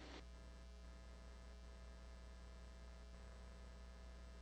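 Near silence: a steady low electrical hum with faint hiss.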